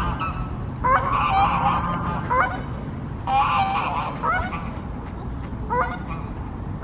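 Waterbirds calling on a lake: about five harsh, honking calls, some drawn out and some short, over steady low background noise.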